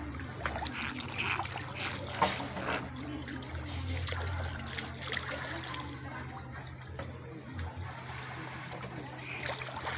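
Shallow stream water running and trickling over a stony bed and around feet in sandals, with occasional small splashes.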